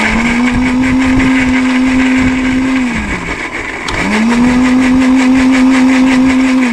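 Battery-powered blender motor running in two pulses of about three seconds each: it whirs up to speed, holds a steady pitch, then winds down as it purées chopped lemongrass, onion, tomato and chillies in water.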